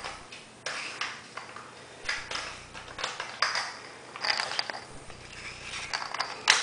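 Metal Mag-Lite flashlight being handled as its cap is worked onto the barrel threads over four D cells: irregular short scrapes and clicks, with a sharp click near the end.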